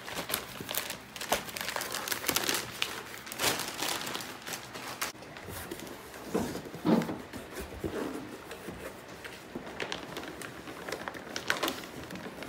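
Packing paper and a plastic bag rustling and crinkling as they are handled and pulled out of a cardboard box, with irregular rustles and a few knocks against the box.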